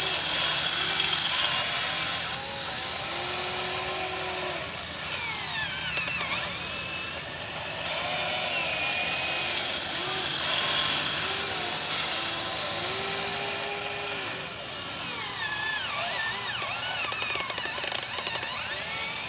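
Small electric motors of a Huina 580 RC excavator running, their whine rising and falling in pitch again and again as the machine is worked, with short steady stretches between.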